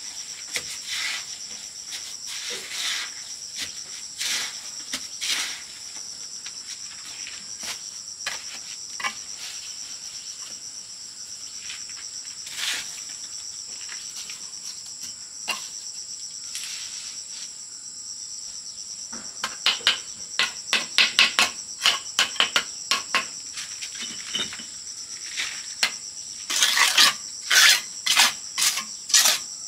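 A steady, high-pitched chorus of insects, with sharp taps and scrapes from brick-and-cement work scattered through it. The taps come in quick, louder runs about two-thirds of the way through and again near the end.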